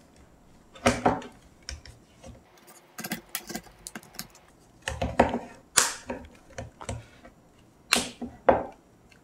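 Back cover of a Xiaomi Mi 3 phone being pressed on by hand, its clips snapping into place: a string of irregular sharp clicks and snaps.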